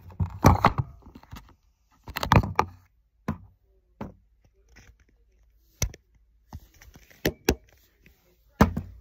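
Handling noise from a phone held by a young child: rubbing and bumping, with two louder bursts in the first three seconds and then a scatter of sharp taps and knocks.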